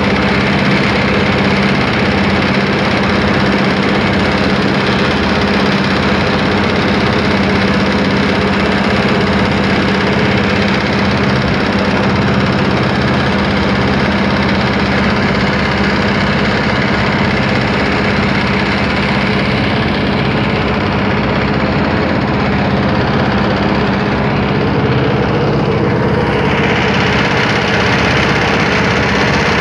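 Engine of a wooden river boat running steadily while the boat is underway, a loud, constant drone that holds the same pitch throughout.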